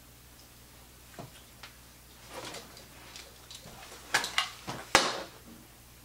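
Knocks and clothing rustle of a person moving about and sitting down on a seat, ending in a sharp thump about five seconds in.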